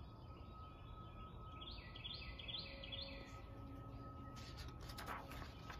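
A songbird outdoors repeating a short chirping call about five times in quick succession, faint against a low background hiss. Near the end, a brief papery rustle of a book page being turned.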